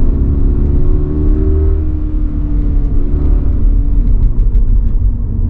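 Toyota GR86's 2.4-litre flat-four engine running under way with a deep road rumble. The engine note climbs a little in the first couple of seconds, then eases off and settles.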